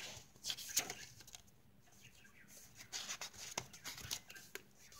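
Paper rustling and flicking as the pages of a handmade junk journal are turned and its cards and pockets handled: a few soft rustles in the first second, a quieter stretch, then more rustles from about three seconds in.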